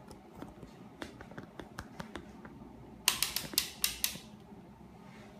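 Rotary selector dial of a handheld digital multimeter being turned by hand: a quick run of about six sharp clicks lasting about a second, after a few scattered faint ticks.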